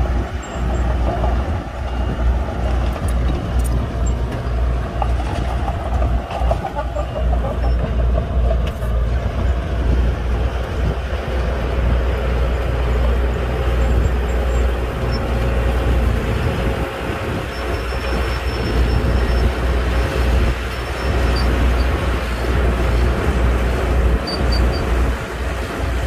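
Komatsu mini bulldozer's diesel engine running steadily under load as it pushes sand, a deep, pulsing rumble.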